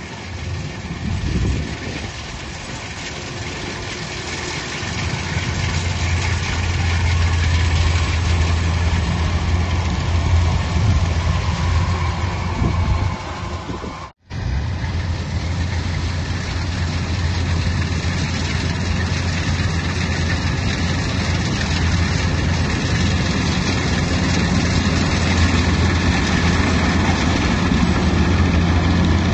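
Engine of a heavy farm machine running steadily with a deep hum, growing louder over the first several seconds. The sound cuts out for an instant about halfway through, then carries on.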